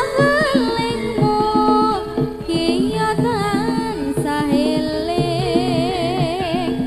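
Javanese jaranan gamelan music: a high wavering melody line runs over repeated short gong-chime notes and drum strokes.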